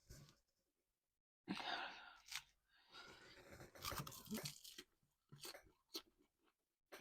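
Chewing and crunching a mouthful of salad with crispy toppings, in irregular bursts with sharp clicks.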